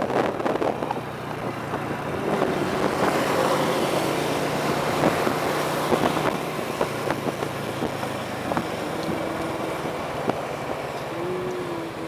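Motorcycle engine running steadily while being ridden along a road, with a low steady hum under a rush of road noise.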